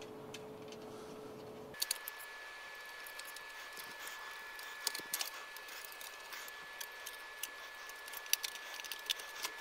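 Scattered light clicks and taps as the Protel UPMS 1200 modem's circuit board is handled and seated into its metal case, with a faint steady high tone from about two seconds in.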